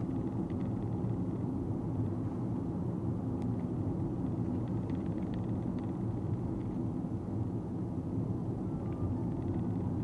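Steady low road and tyre rumble inside the cabin of a moving Nissan Note e-POWER.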